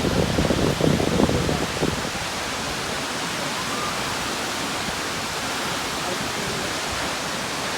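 Steady rushing hiss of a waterfall, with gusty low rumbling for about the first two seconds.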